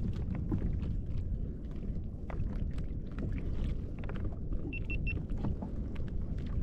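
Steady low rumble of a kayak on the water, with scattered small clicks and knocks, and three quick high beeps of one pitch about five seconds in.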